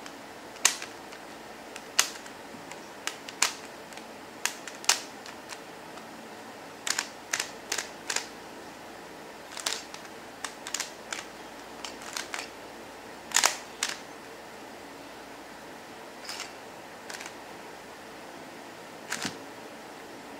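QiYi Windmill Cube's plastic layers clicking as they are turned by hand: irregular sharp clicks, some in quick pairs or little runs.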